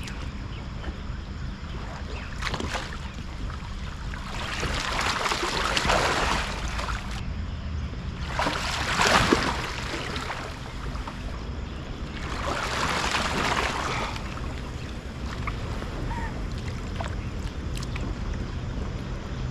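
Water splashing and sloshing around a capsized kayak and its paddler during kayak-roll attempts, in three rushes of splashing a few seconds apart, the middle one loudest. Underneath is a low steady rumble.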